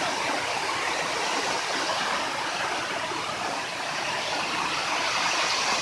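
Steady rush of fast-running water from a stream and waterfall, an even hiss with no change in level.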